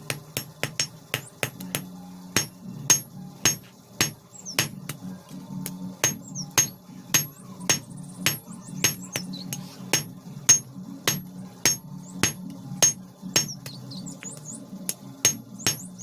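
Blacksmith's hammer striking iron on an anvil in a steady rhythm, about two to three ringing blows a second, while forging a chheni (cold chisel).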